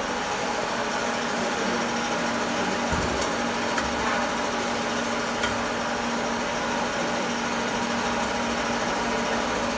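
Steady machine hum over an even hiss, with a few light clicks.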